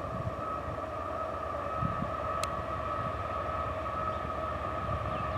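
Horn of an approaching CSX GE AC4400CW diesel locomotive held in one long steady blast, over the low rumble of the engine.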